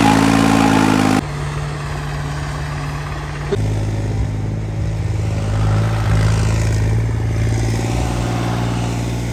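Vehicle engine running steadily, with sudden changes in its sound about a second in and about three and a half seconds in.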